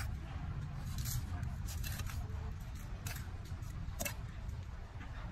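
Short, crisp scrapes and crunches of dry, gritty soil as hands and a small metal garden trowel press and pack it into a plastic pot, about five in all, over a steady low rumble.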